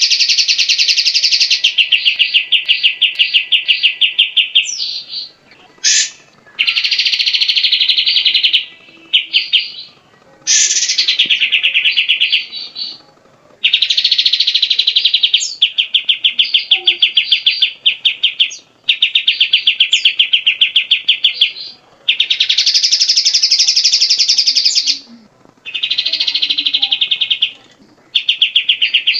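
Cucak jenggot (grey-cheeked bulbul) singing loud, rapid chattering trills of fast-repeated notes. The phrases last one to three seconds, with short pauses between them.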